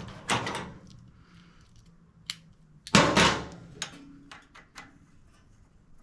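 Metal hand tools and engine parts being handled: two short clattering rattles, one just after the start and a louder one about three seconds in, with a sharp click and several light ticks between and after.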